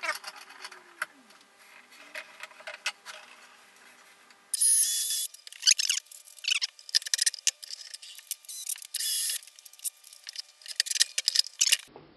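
Clamps and wooden guide blocks being handled and set in place: a run of irregular clicks and rattles with a few short scraping noises.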